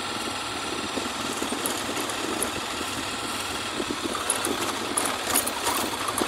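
Honda Twister motorcycle's single-cylinder engine running steadily at low speed as it rolls slowly along. A few light, sharp clicks come about four to six seconds in.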